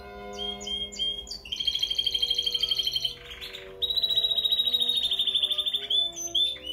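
Spanish Timbrado canary singing: a fast trill, a brief rasping buzz about three seconds in, then a long, even, rapid trill held for about two seconds.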